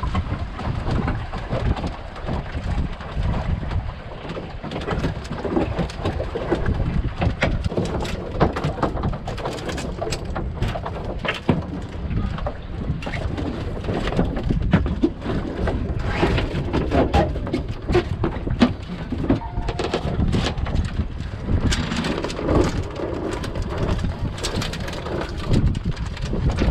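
Wind buffeting the microphone aboard a sailing dinghy as a steady low rumble, with frequent short knocks and clatter throughout.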